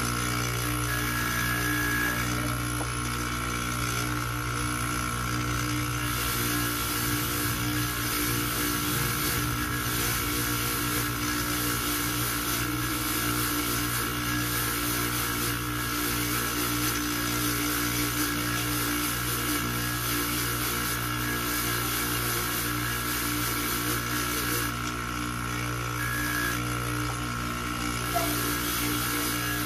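Electric buffing motor running steadily with a buffing wheel spinning on its threaded spindle: an even hum with a few held tones.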